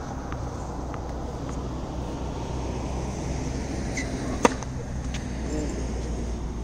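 Tennis serve: one sharp pop of the racket strings hitting the ball, about four and a half seconds in, over a steady low background rumble.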